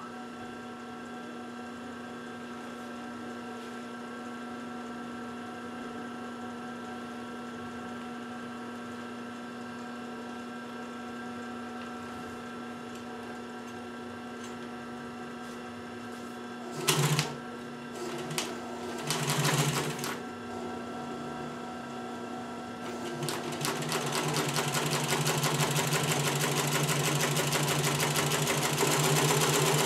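Pfaff industrial sewing machine: its under-table electric motor hums steadily, then the machine stitches in a few short bursts and, from about two thirds of the way in, runs steadily. It runs at a much reduced speed because a smaller pulley has been fitted on the motor.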